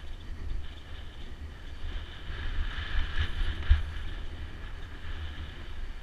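Wind buffeting the microphone of a rider-mounted camera during a mountain-bike descent on a dirt singletrack. A deep rumble runs throughout, with a steady higher hiss of the tyres and bike moving over the trail.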